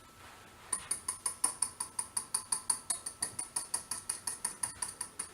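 A whisk beating egg yolks in a metal bowl over simmering water, striking the side of the bowl in an even ringing tapping, about six or seven strokes a second, starting just under a second in.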